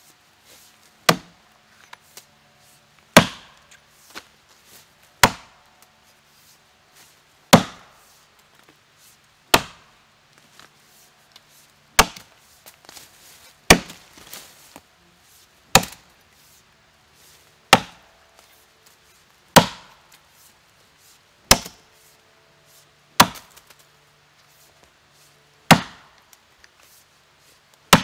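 Rinaldi Calabria 700 g axe chopping a felling notch into a standing tree trunk: sharp, single strikes of the steel head into the wood, evenly paced about every two seconds, some thirteen in all.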